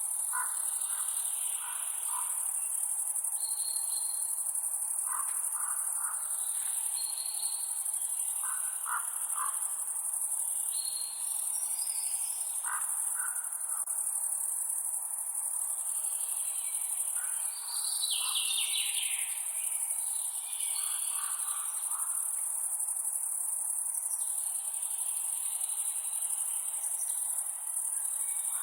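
Forest ambience: a steady, high-pitched insect chorus, with short bird calls coming every couple of seconds and a falling call about 18 seconds in.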